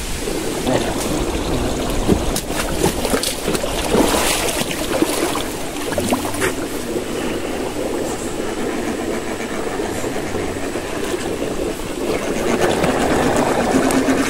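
Radio-controlled 4x4 scale crawler running over rocky ground: its small electric motor and gears whir steadily, with scattered clicks and knocks of tyres and chassis on stone. It gets louder near the end.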